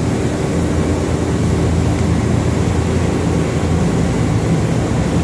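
Okuma LC40-2ST CNC lathe running with a steady mechanical hum while a turret slide is jogged back along its axis.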